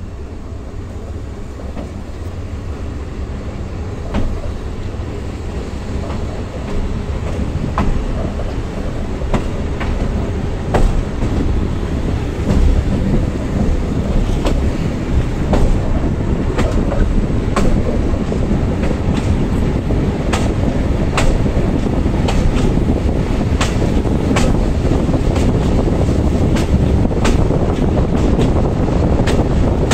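BZmot diesel railcar pulling away and gathering speed, heard from an open window. The rumble of the engine and running gear grows steadily louder, and the clickety-clack of the wheels over rail joints comes closer and closer together as the train speeds up.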